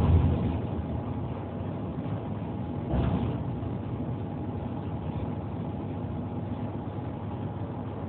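Steady road and engine rumble heard from inside a moving vehicle on a highway. It swells louder briefly at the start and again about three seconds in.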